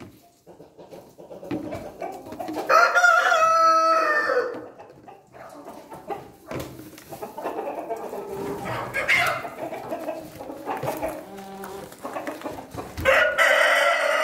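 Australorp rooster crowing twice, one long crow about three seconds in and another starting near the end, with hens clucking in between.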